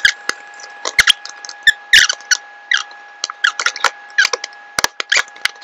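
Hand-tool and handling noise at a wooden guitar headstock: a small screwdriver and tuner hardware give an irregular run of sharp clicks and short squeaks.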